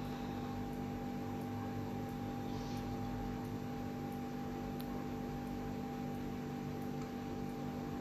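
Steady electrical hum with a few constant tones over an even background hiss: room tone with no distinct action sound.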